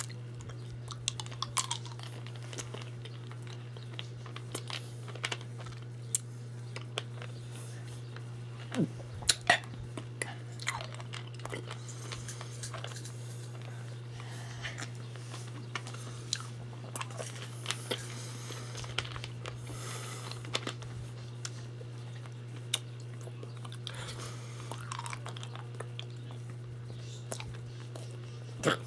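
Mouth sounds of a person sucking and chewing a mouthful of Warheads sour hard candies: scattered wet clicks and smacks, a couple of them louder about nine seconds in, over a steady low hum.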